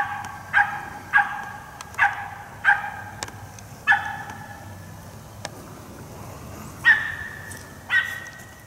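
Feist squirrel dog barking treed at the base of a tree, about eight sharp barks with a gap of a few seconds midway: the bark of a dog that has a squirrel up the tree.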